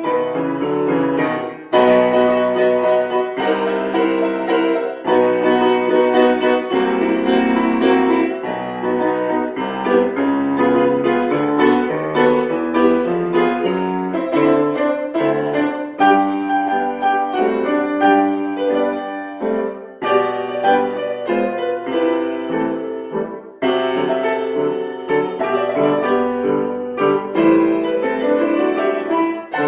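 A piano playing a classical piece, with brief breaks between phrases.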